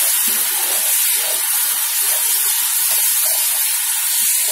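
Spice paste of ginger and ground spices sizzling in hot mustard oil in a wok while it is stirred, a steady hiss: the masala being fried down until the oil separates.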